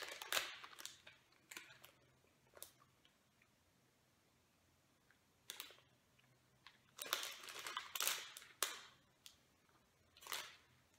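Mouth sounds of a person chewing a gummy candy: a few short, soft noises scattered through the quiet, with the busiest stretch about two thirds of the way in.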